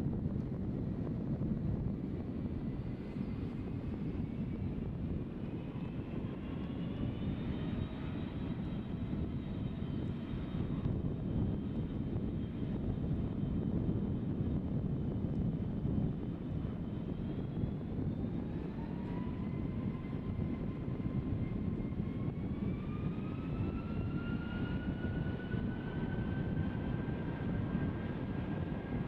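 Twin jet engines of a Boeing 757 airliner spooling up on the runway for departure: a steady rumble under a whine that rises in pitch in two steps, first a few seconds in and again past the middle.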